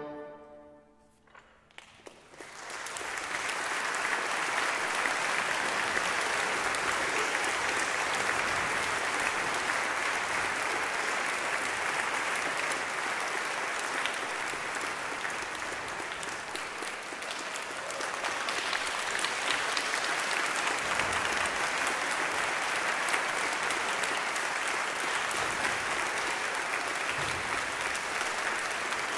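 A concert band's final chord dies away, followed by a moment of near silence. Then the audience breaks into sustained applause, which eases slightly past the midpoint and picks up again.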